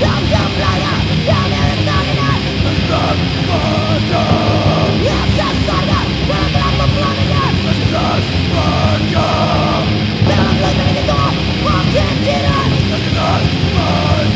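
Anarcho grind/crust punk music played from a vinyl record: loud, distorted guitars, bass and fast drums, with harsh shouted vocals over the top.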